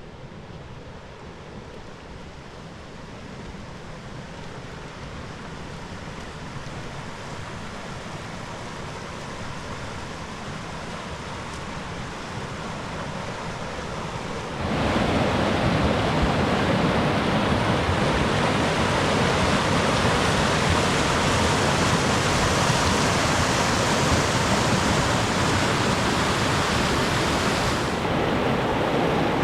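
Waterfall rushing: a steady wash of water noise that grows gradually louder, then jumps abruptly louder about halfway through. Near the end the hiss loses its highest part.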